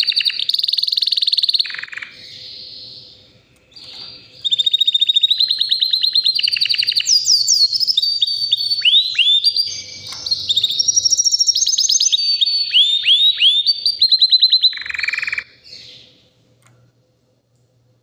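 White canary singing: rapid trills and quick falling sweeping notes. A short phrase breaks off, and after about two seconds' pause a long unbroken stretch of song follows, which stops near the end.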